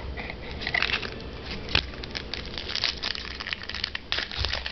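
A trading-card pack wrapper being crinkled and torn open and the cards handled, a dense run of small crackles with a sharper crack a little under two seconds in.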